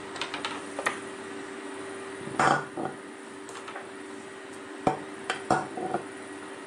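Plastic toothbrushes dropped one after another into a hard toothbrush holder, clattering against it: a few light clicks near the start, the loudest clunk about two and a half seconds in, and a cluster of knocks about five seconds in. A steady low hum runs underneath.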